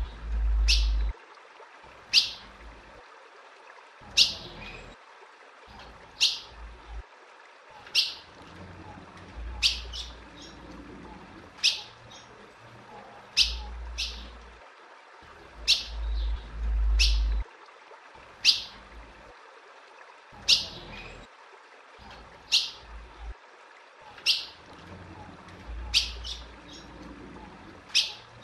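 Female ultramarine grosbeak (azulão) giving its contact call: short sharp chirps repeated every one to two seconds, sometimes two close together. This is the call of a female calling to stir a male into breeding condition. A few low rumbles come near the start and again around the middle.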